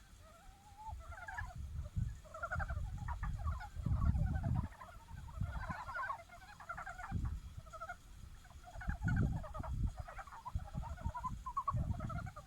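Chorus of montane brown frogs (Rana ornativentris) giving mating calls. Many voices overlap in short runs of rapid pulses. An uneven low rumble sits underneath.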